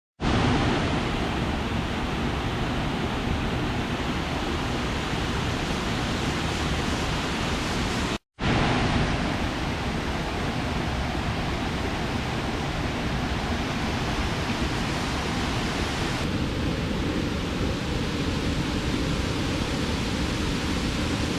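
Steady rushing water, an even roar with no distinct events. It breaks off for an instant about eight seconds in, and its tone shifts slightly about sixteen seconds in.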